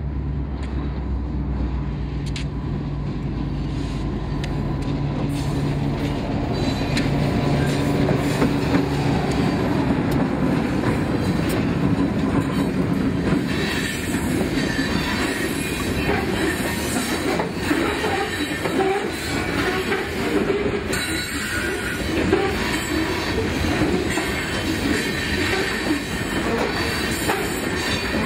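Freight train's covered hopper cars rolling past close by: a steady rumble with wheels squealing and clacking over the rail joints, and scattered metallic clanks. A low hum fades out over the first several seconds as the cars take over.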